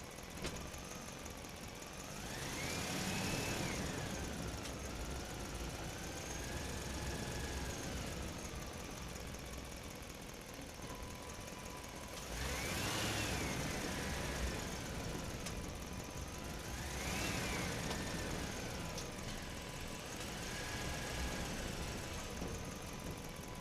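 An engine running steadily, its pitch rising and falling several times as it revs up and settles back.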